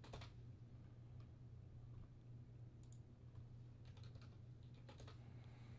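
Faint, scattered clicks from a computer keyboard and mouse, a few every second or so, over a low steady hum.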